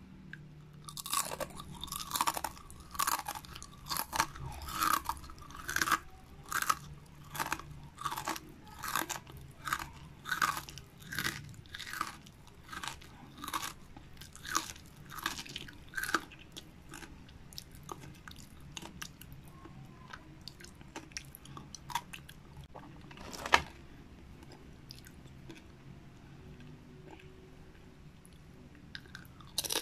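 Crunchy battered fried seaweed being chewed close to the microphone: crisp crunches about two a second for the first half, then slowing to scattered bites, with one sharp, louder crunch about two-thirds of the way through.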